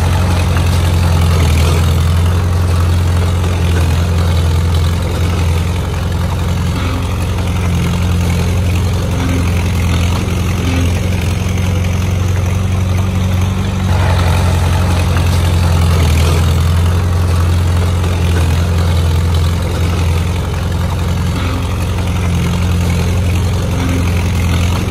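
Heavy diesel engine of a construction machine running steadily with a deep, even hum.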